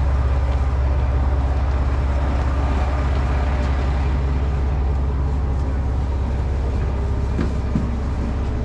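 Sanriku Railway diesel railcar engine idling while the train stands in the station: a steady low rumble.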